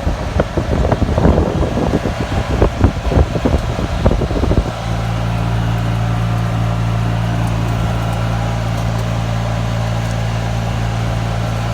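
Golf cart driving over rough ground, full of jolts, knocks and rattles, which cuts off abruptly almost five seconds in to a steady low engine hum, the cart running while stopped.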